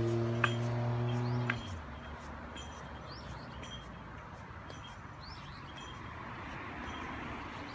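A steady low hum cuts off about one and a half seconds in. Then there is open-air background noise with a few short bird chirps spread through the rest, and faint high ticks.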